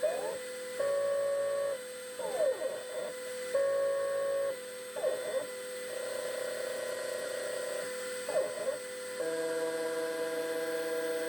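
Shop-built KRMx02 CNC router at work: the stepper motors drive the axes and sing in steady tones that jump to a new pitch with each move, sweeping up and down in pitch several times as the machine speeds up and slows down. A V-bit spindle at 15,000 RPM whines steadily underneath.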